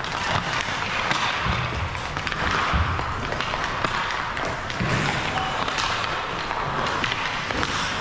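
Ice hockey play on a rink: skate blades scraping and carving the ice in a continuous hiss, with scattered sharp clacks and knocks of sticks and pucks.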